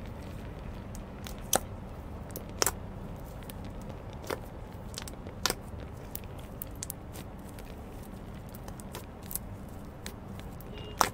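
Hands squeezing and folding a thick slime, giving sharp pops and clicks every second or two over a steady low hum.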